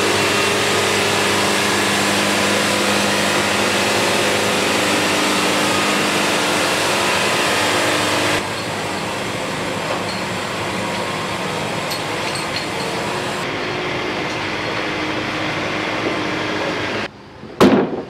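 Band sawmill running: a steady engine drone under the hiss of the band blade. The sound drops slightly in level at a cut about eight seconds in and stops about a second before the end.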